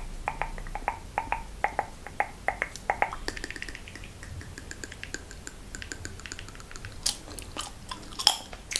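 Close-miked wet mouth sounds: quick clicking smacks for about three seconds, then finer, higher crackling, with a louder burst of crackles near the end.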